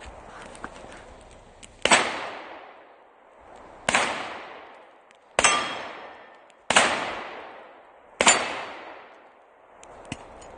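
Five pistol shots from a 9mm Glock, fired singly at an uneven pace of roughly one every one and a half to two seconds, each followed by an echo fading over about a second and a half.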